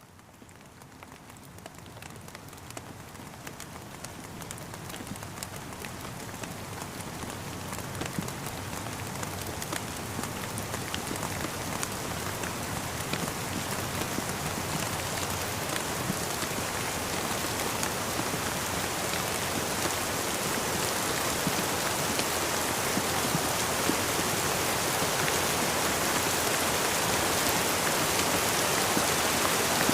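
Rain falling, an even hiss peppered with many small drop ticks, growing steadily louder over the whole stretch.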